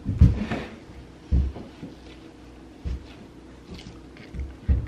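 A few dull knocks and bumps from objects being handled on a table, four short thuds spread over a few seconds.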